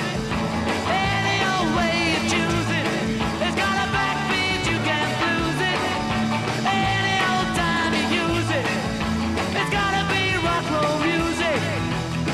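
Rock-and-roll song with a singer over a steady bass line.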